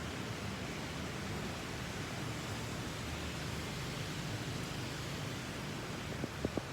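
Steady hiss of heavy typhoon rain and wind, with a few short taps near the end.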